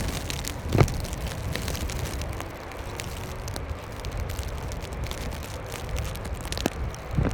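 Snowstorm wind buffeting the microphone as a steady low rumble, with scattered crackles and a heavier thump about a second in and another near the end.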